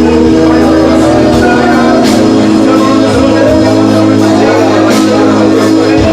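Loud music with held chords over a bass line, and a sharp, bright accent twice.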